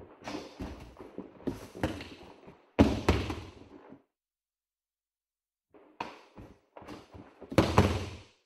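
Aikido practice on a mat: bare feet stepping and stamping, keikogi and hakama cloth snapping, and bodies thudding onto the mat as a throw is done, with heavy falls about three seconds in and near the end.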